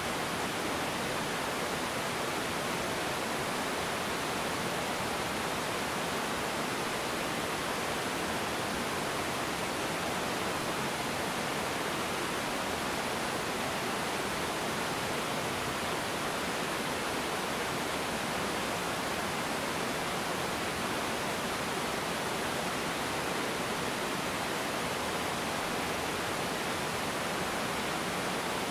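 Small river waterfall cascading over rocks, with the river running over shallows: a steady, even rush of water that does not change.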